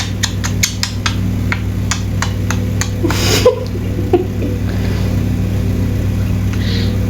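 Pet budgerigar chattering in short clicks and chirps, quickly at first and then sparser, over a steady electrical hum, with a louder half-second burst of noise about three seconds in.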